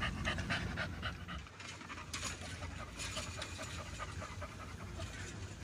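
A dog panting quickly and steadily.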